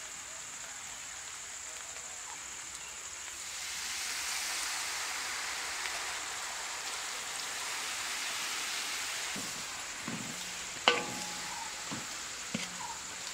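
Onions and green peppers frying in a large metal pan. The steady sizzle grows louder about three and a half seconds in. Near the end a wooden spatula stirs and knocks against the pan a few times, with one sharp knock the loudest sound.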